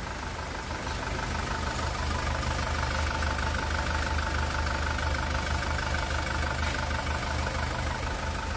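SsangYong Rexton Sports 2.2-litre four-cylinder turbodiesel idling steadily, with the usual light diesel clatter. The engine is freshly rebuilt, with a bored block and a new crankshaft, pistons and bearings.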